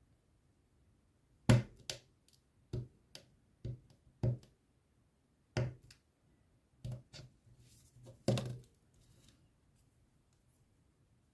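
Hard objects being handled and set down: about ten sharp knocks and clicks at irregular intervals, with the loudest near the start and near the end.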